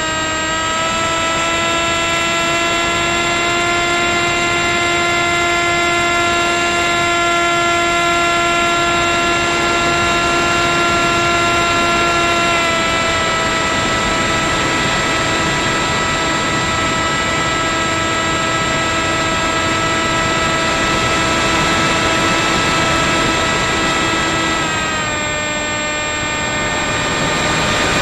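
Electric RC plane's 2216 2000kv brushless motor spinning a 6x4.5 propeller at steady throttle, a continuous pitched whine over a rush of air. The pitch drops a little about 13 s in and again near 25 s, then climbs back near the end as the throttle changes. A thin, constant high-pitched whine runs above it.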